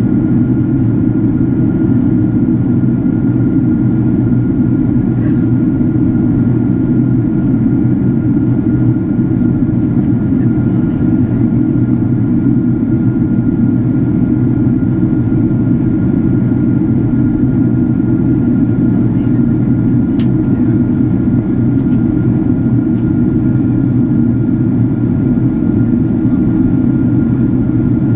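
Steady cabin noise inside a Boeing 767-400ER airliner in flight: a deep, even rush of airflow and engine sound, with a thin steady whine above it.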